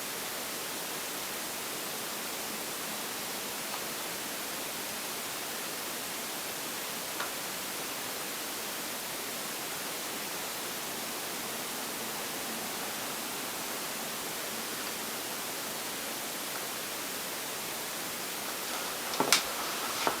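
Steady, even hiss like static, with a faint click about seven seconds in and a few sharp knocks shortly before the end.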